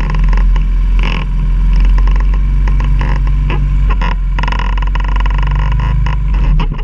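Quad (ATV) engine running steadily while climbing a steep mountain trail, with frequent short knocks and rattles over the engine drone.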